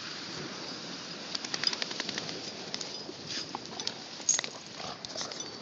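A Dalmatian digging and pawing at sandy, pebbly ground: a run of short, irregular scratches and clicks starting about a second in, over a steady hiss.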